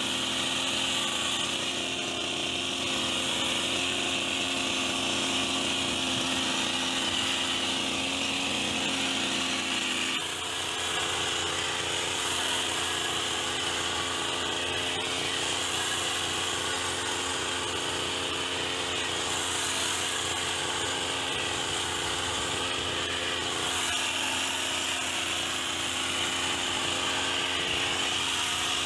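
Petrol hedge trimmer running steadily, its small engine and reciprocating blades buzzing; the tone shifts about ten seconds in.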